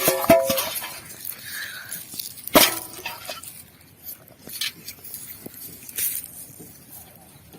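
Irregular splashes and slaps of water, a few sharp ones with quieter sloshing between, as fish are caught by hand in water.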